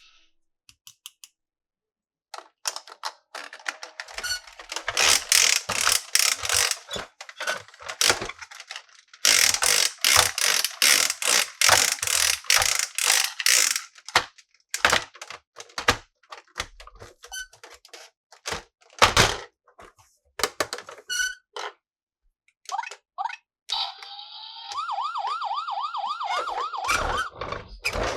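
Plastic packaging and toy parts crackling and clicking as they are handled, dense for the first half and then in single clicks. Near the end a toy's electronic siren sound effect plays with a repeating warble.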